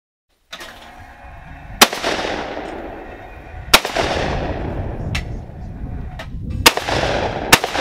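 Shotgun firing at clay targets: four loud shots, each trailing off in an echo, with a fainter crack between the second and third.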